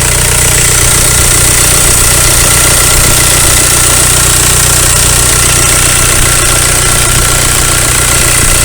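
VW Golf mk4 engine idling with both electric radiator cooling fans running, a steady rushing of air over the engine's low hum. The fans are running under the newly replaced fan control module with the A/C on.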